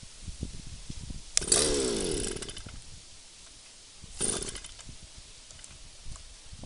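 Stihl brush cutter's small two-stroke engine being pull-started: it runs for about a second before dying out, then gives a second, shorter burst a few seconds later.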